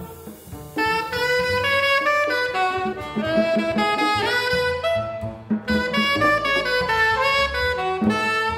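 Tenor saxophone playing a jazz melody line, with double bass notes underneath. The saxophone drops back briefly at the start and comes in strongly about a second in.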